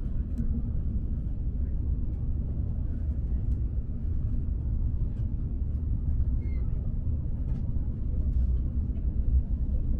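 High-speed train running with a steady low rumble, with a few faint clicks and knocks over it.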